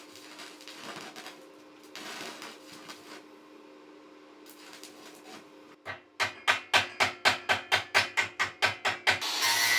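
A low steady hum with faint scattered scraping, then about halfway through a fast, even run of sharp knocks, about five a second, lasting some three seconds.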